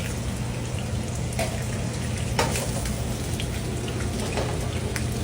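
Trout frying in a hot pan: a steady sizzle with scattered sharp pops about once a second, over a steady low hum.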